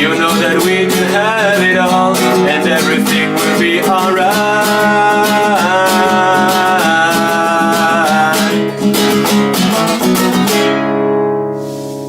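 Music: a strummed acoustic guitar with backing and a wavering melody line over it. About ten and a half seconds in, the strumming stops and a final chord is held and fades out, ending the song.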